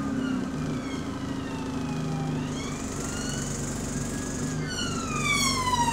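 Bus engine and drivetrain heard from inside the saloon: a moaning whine in several tones that glides down, rises again, then sweeps steeply down about four and a half seconds in, over a steady engine hum. This moan is the unusual engine sound of a bus converted to Allison xFE transmission calibration.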